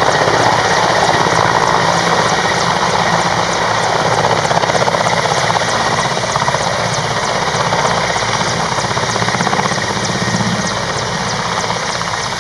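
Mil Mi-17 military helicopter's main rotor and twin turboshaft engines running close by as it moves low over the ground. Loud and steady with a rapid, even blade beat, easing slightly near the end.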